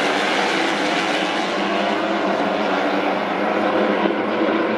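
A pack of MotoGP racing motorcycles, 1000 cc four-cylinder four-strokes, passing through the corners in a long line, their many engines overlapping in one steady, high-pitched mix.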